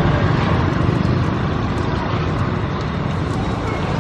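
Steady street traffic noise with a strong low rumble, unbroken and unchanging.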